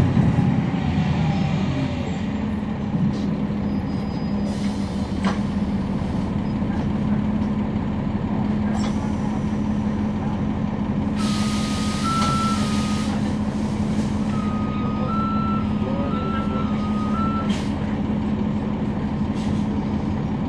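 The Cummins ISL9 diesel of a NABI 40-SFW transit bus, heard from on board, runs steadily. About eleven seconds in, a loud burst of compressed-air hiss lasts about two seconds, and a high electronic beep alternates between two pitches during and after it.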